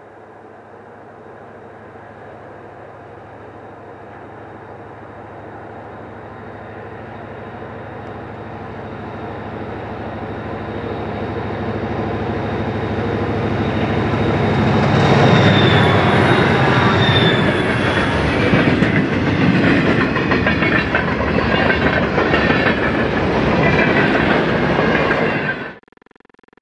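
Diesel-hauled train approaching, with the locomotive's engine hum growing steadily louder for about fifteen seconds. It then passes close, the cars clattering rapidly over the rails, and the sound cuts off suddenly near the end.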